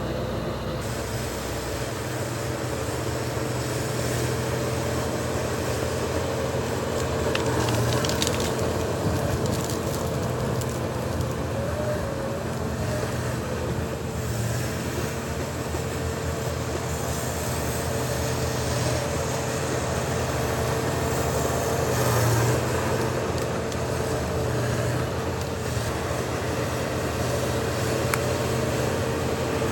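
Heavy diesel earthmoving machinery running steadily, with an engine drone and a steady whine. It swells louder about a quarter of the way in and again about three quarters through.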